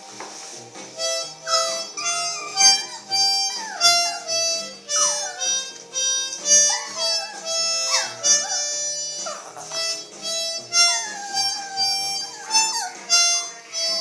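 A dog howling along to a harmonica: repeated howls that slide down in pitch, over the harmonica's steady chords and notes.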